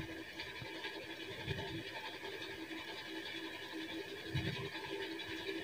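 Faint room tone: a steady low hum with a few soft low thuds, and no speech.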